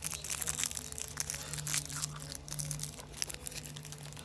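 Close crinkling and crunching rustle made of many quick sharp clicks, over a low steady hum.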